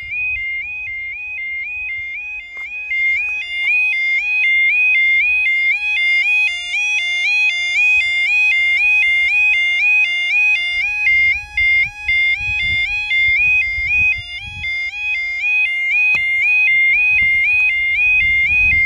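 Level crossing warning sounder, a red alarm box on a post, sounding a repeating stepped two-pitch electronic warble about twice a second. It gets louder about three seconds in. The alarm that a train is approaching the crossing.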